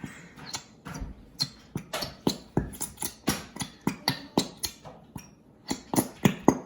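Glitter glue squeezed from a plastic squeeze bottle, the thick glue spluttering out with trapped air in a run of short squelches like a fart, about three a second, with a brief pause near the end.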